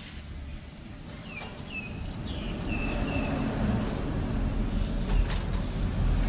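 A low rumbling noise grows steadily louder, with a run of about five short, high, falling chirps in the first half.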